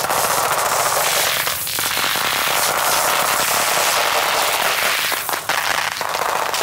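Firecrackers going off in a rapid, unbroken run of cracks.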